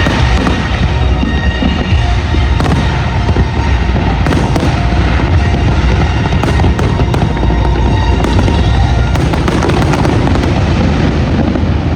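Fireworks going off: repeated sharp cracks and bangs over a continuous low rumble, with a dense flurry of crackles about nine seconds in.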